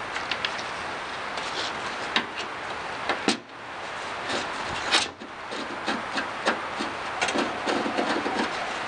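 Scattered clicks, taps and knocks of a screwdriver and small parts being worked on a bare steel car door shell, over a steady hiss. Two louder knocks come about three and five seconds in.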